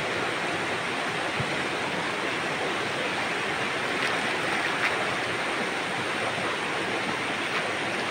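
A fast-flowing, swollen river rushing past, a steady even noise of running water.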